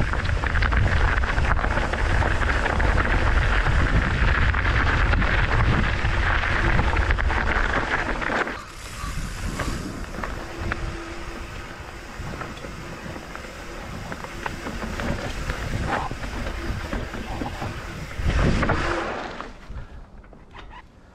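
Wind rushing over the camera microphone and mountain bike tyres rolling over a steep dirt trail. Loud for the first eight seconds or so, then quieter, with another short rush of noise near the end.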